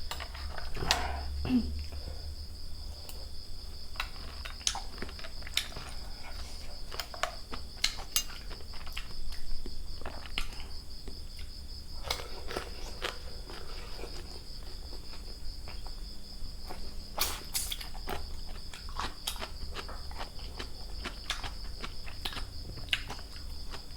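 Crickets chirping steadily in a continuous high trill. Scattered short clicks and knocks run over it, with one louder cluster about 17 seconds in.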